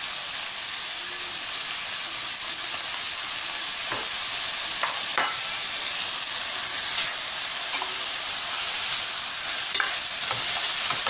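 Freshly added chopped spinach sizzling in hot oil in a pan with onion and mashed potato, a steady frying hiss as it is sautéed. A spatula stirring gives a few short scrapes and taps against the pan.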